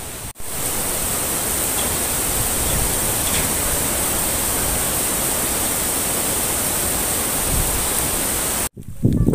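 Steady rushing of water, an even hiss with no separate events, which starts abruptly just after the beginning and cuts off abruptly near the end.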